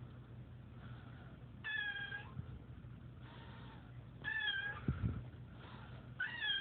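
Domestic cat meowing three times, short bending calls about two seconds apart, complaining at being poked. A brief low thump comes just after the second meow.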